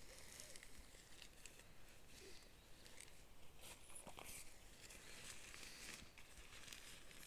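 Near silence with faint rustling of nylon tent fabric being handled and light footsteps on grass.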